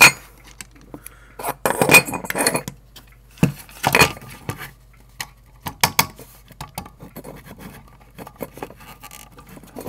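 Clinks and clicks of a circuit board and small metal parts handled on a workbench. There is a cluster of clatter about two seconds in, another about four seconds in, and scattered single clicks around six seconds.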